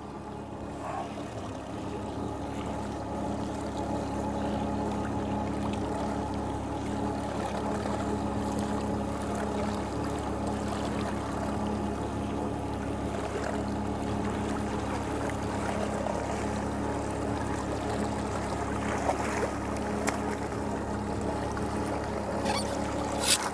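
Boat's outboard motor running steadily at trolling speed, a constant even drone. A brief sharp noise comes near the end.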